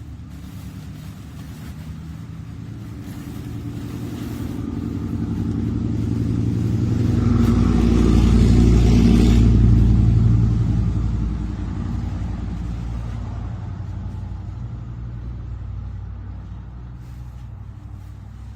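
A motor vehicle driving past: its engine and tyres grow louder to a peak about eight to ten seconds in, then slowly fade away.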